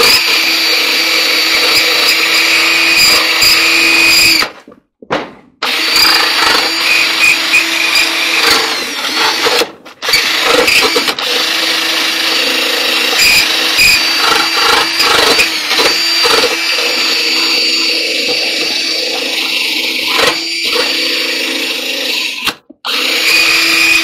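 Cordless drill spinning a wheel attachment against the dryer's sheet-metal front panel, grinding off old excess sealer: a steady motor whine with scraping. It runs in long stretches, stopping briefly about four and a half seconds in, again around ten seconds, and shortly before the end.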